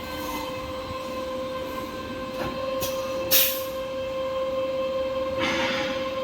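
Paper converting machinery running with a steady whine, broken by a few short hissing bursts, the loudest and sharpest about three seconds in and a longer one near the end.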